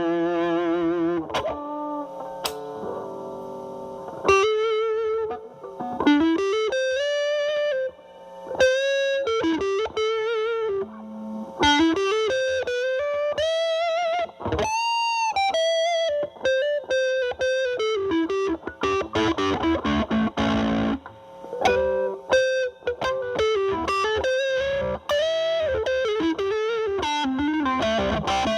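Electric guitar, a Fender Stratocaster through a Boss DS-2 Turbo Distortion in turbo mode into a Marshall Valvestate's drive channel, with the distortion cleaned up to a lighter drive. A few held chords about two seconds in, then single-note lead lines with string bends and vibrato, including a long note held with wide vibrato about halfway through.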